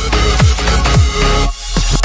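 Background electronic dance music with a heavy beat of falling-pitch bass kicks about twice a second; the bass briefly drops out near the end.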